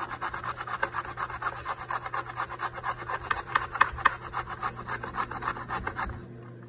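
Zucchini being shredded on a metal box grater: fast, rhythmic scraping strokes, several a second, that stop about six seconds in.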